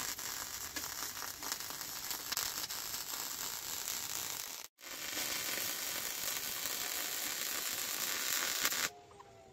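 MIG welding arc crackling and sizzling steadily as a bead is laid on steel, from an HTP Pro Pulse welder. It cuts out for a split second just before halfway, then carries on until it stops suddenly near the end.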